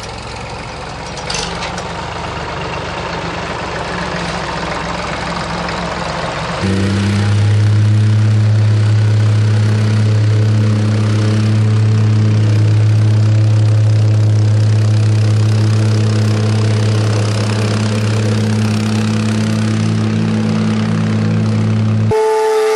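Petrol plate compactor running, its vibrating plate giving a loud, steady, even hum as it works over a sand bed. Before that, about a third of the way in, a mixed, rougher engine noise rises, fitting the tractor carrying the compactor in its loader bucket. The hum cuts off abruptly near the end.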